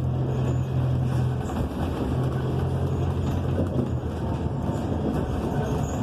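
Inside a New Flyer XN40 transit bus under way: the Cummins Westport ISL G natural-gas engine gives a steady low drone over road noise. The drone weakens briefly about two seconds in and again near four seconds.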